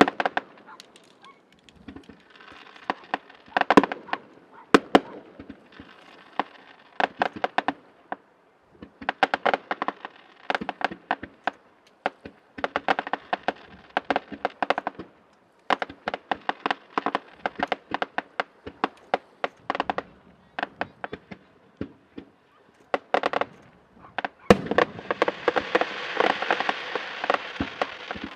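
Aerial fireworks display: a rapid series of sharp bangs and crackles from bursting shells, with stretches of a steady pitched hiss among them. A louder continuous rushing sound begins about 24 seconds in.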